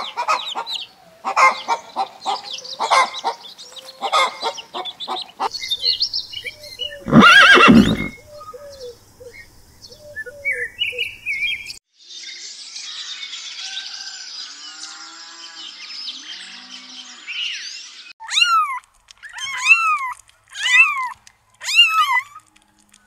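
A run of animal sounds: chickens clucking at first, a single loud animal call about seven seconds in, then birds chirping. Near the end, kittens meow about five times.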